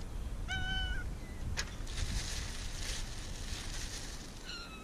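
Cat meowing twice, a short meow about half a second in and another starting near the end, with a plastic bag rustling in between and a steady low rumble underneath.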